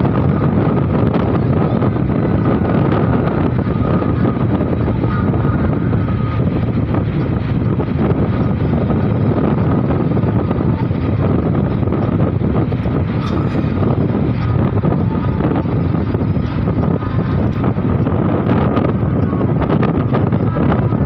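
Steady road and wind noise from inside a moving vehicle, with wind rushing over the phone's microphone.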